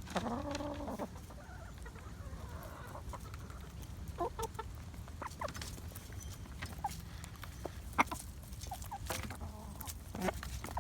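Sick hen making a weird noise: a drawn-out pitched call in the first second, then scattered short clicks and soft blips, the sharpest about eight seconds in. Her crop is full and squishy in the morning with no food in it.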